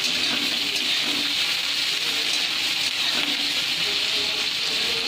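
Chopped onions sizzling in hot oil in a steel kadai, a steady hiss.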